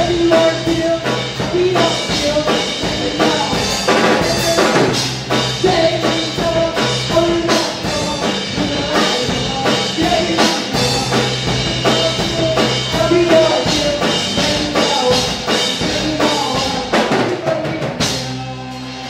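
Live rock band playing: electric guitar, bass guitar and a Pearl drum kit, with a singer on vocals. The band thins out and gets quieter about a second before the end.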